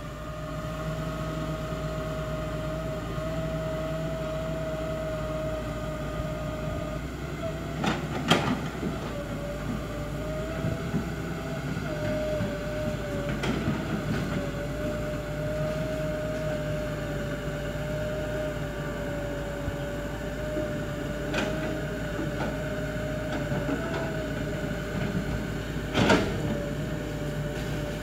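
Tracked hydraulic excavator working, running steadily with a wavering whine over a low hum. A few sharp knocks cut through as it works the brush pile, the loudest about a third of the way in and near the end.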